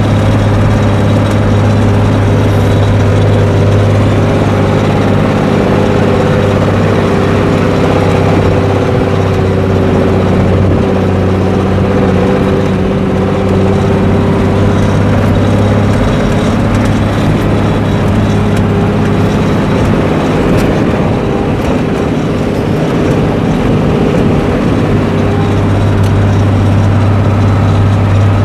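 Engine idling steadily with a low, even exhaust rumble, holding one pitch with no revving.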